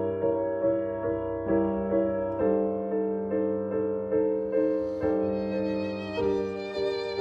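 Grand piano playing steady repeated chords, about two a second. A violin joins over the piano in the second half.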